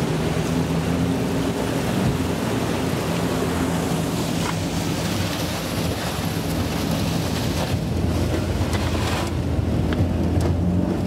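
Small 15 hp outboard motor running steadily at speed while the aluminum boat breaks through thin lake ice, with a constant rush of ice and water along the hull and wind on the microphone.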